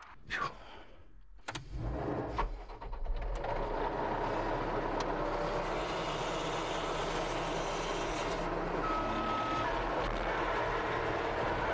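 A skid steer engine starts about a second and a half in and then runs steadily as the machine moves off. A few knocks and clunks come as someone climbs into the cab at the start, and there is a short beep near the end.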